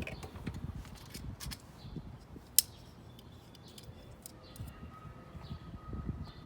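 Small clicks and taps of hands working with tools and parts, with one sharp click about two and a half seconds in. A faint steady tone comes in a little past four seconds.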